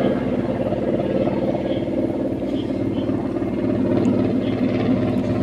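Steady low mechanical drone of a running machine, holding an even pitch throughout.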